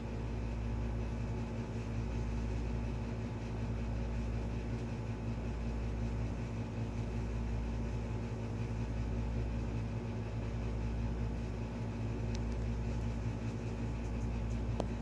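Steady low machine hum with a faint hiss, unchanging throughout, and two faint clicks near the end.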